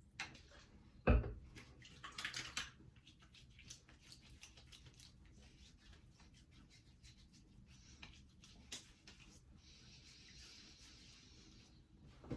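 Quiet handling of a witch hazel bottle while it is put on after a shave: a sharp knock about a second in, a short rustling noise a second later, scattered small clicks, then a steady hiss for about two seconds near the end.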